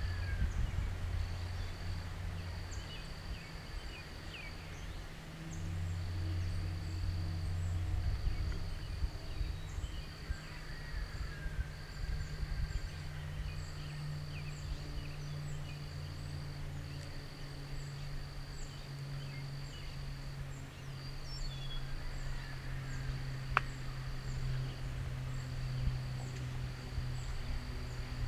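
Rural outdoor ambience: a steady high insect trill that breaks off and resumes every second or two over a low steady rumble, with scattered faint chirps and a single sharp click about twenty-three seconds in.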